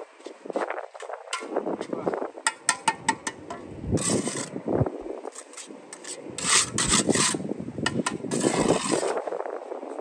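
Steel mason's trowel working wet mortar on a mortar board and concrete blocks: a series of short scrapes, with a quick run of light taps about two and a half seconds in.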